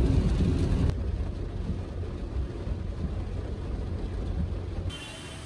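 Inside a car driving in rain: a steady low road-and-engine rumble with a haze of rain noise. It drops suddenly to a quieter rumble about a second in, and fades to a faint hiss near the end.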